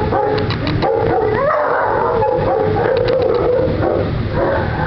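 A dog whining in a long, wavering howl, rising in pitch about a second and a half in, with a few short clicks.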